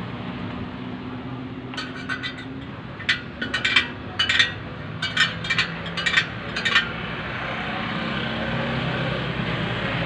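Sharp metallic clicks and clinks in quick, irregular runs from the spokes and nipples of a spoked motorcycle wheel being adjusted with a spoke wrench during truing, starting about two seconds in and stopping near seven seconds, over a steady low hum.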